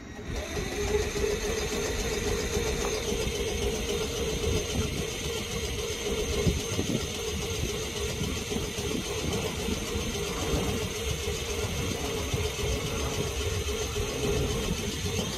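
South Western Railway electric multiple unit standing at the platform with its equipment running, a steady hum with a constant mid-pitched tone and a faint high whine over a low rumble.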